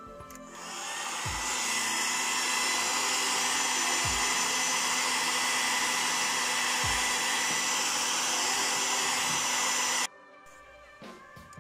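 Heat gun running, blowing hot air with a steady fan hiss that builds up about half a second in and cuts off abruptly near the end.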